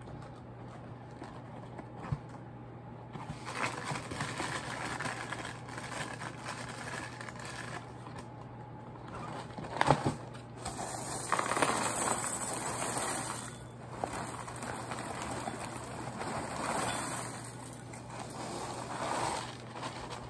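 Cardboard cereal box and its plastic inner bag being handled and opened: rustling and crinkling in spells, with a sharp loud crack about halfway through. A steady low hum sits underneath.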